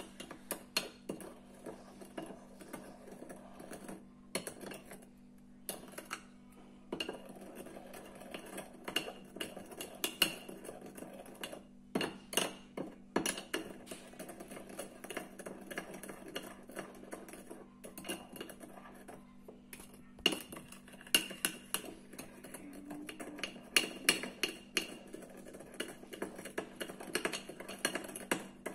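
Metal spoon stirring a wet, gritty paste in a ceramic dish: irregular clinks and scrapes of the spoon against the bowl, over a faint steady hum.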